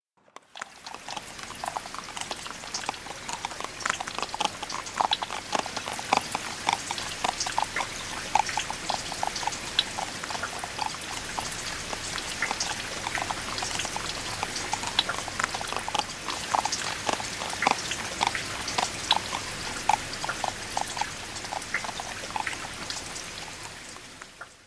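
Horses trotting in the rain: a quick, uneven patter of hoofbeats over a steady hiss of falling rain. It fades in at the start and fades out near the end.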